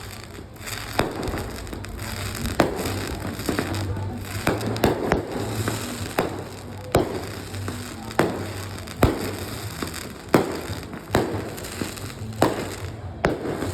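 Aerial fireworks bursting: about a dozen sharp booms, roughly one a second, with crackle and echoing tails between them.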